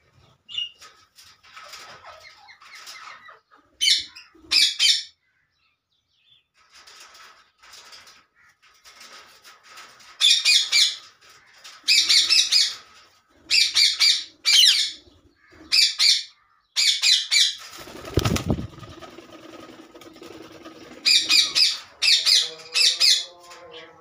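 A lutino (yellow) Indian ringneck parakeet flapping its wings and giving loud, harsh screeches in repeated bursts of about a second each, coming thickest in the second half. A single low thud falls about three-quarters of the way through.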